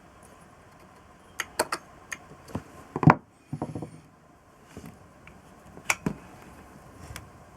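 Scattered clicks and knocks of tools and small metal carburettor parts being handled, with a louder knock about three seconds in.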